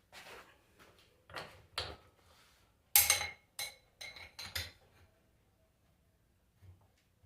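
Metal tools and alternator parts knocking and clinking on a workbench: a handful of short knocks over the first five seconds, the loudest about three seconds in with a brief metallic ring, then nearly quiet.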